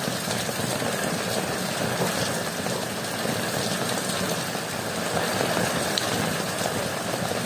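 Heavy monsoon rain falling steadily, hitting an umbrella just above the microphone and the wet ground.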